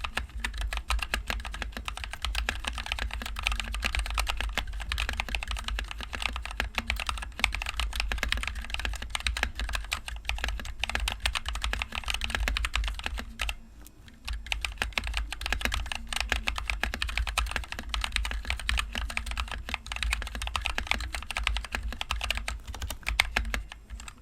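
Continuous fast typing on a NovelKeys NK65 Entry Edition mechanical keyboard with NovelKeys Cream linear switches and HyperX Pudding keycaps, dense key strikes with a short pause about halfway through.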